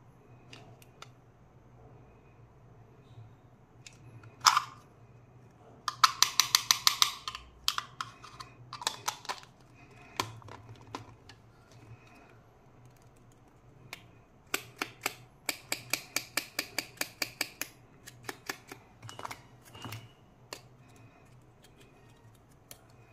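Plastic candy toys and containers being handled, with scattered taps and clicks and two runs of quick clicking, about eight a second, around six seconds in and again around fifteen seconds in.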